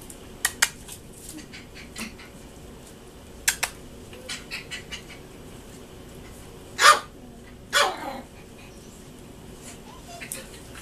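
Young Shih Poo puppies yapping: two high barks about a second apart near the middle, the second falling in pitch, with a few shorter sharp sounds before them.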